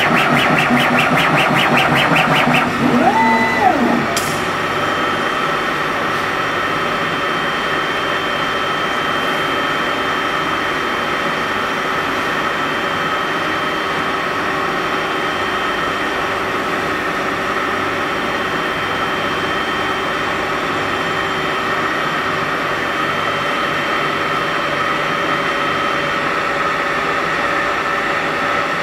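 CO2 laser engraving and cutting machine at work: a quick regular pulsing for the first couple of seconds, a brief whine that rises and falls about three seconds in, then a steady mechanical hum with constant tones from the machine's fans and motors.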